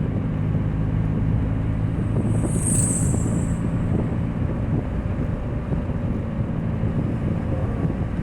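Nissan Altima running on the road with a leaking exhaust: a steady, loud low drone with road noise, heard with the windows open. The owner puts the leak at the flex pipe. A brief high hiss comes about two to three seconds in.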